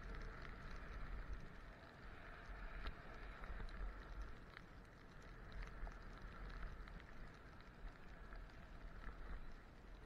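Skis sliding and hissing over snow during a downhill run, with scattered small clicks. Wind rumbles unevenly on the camera microphone.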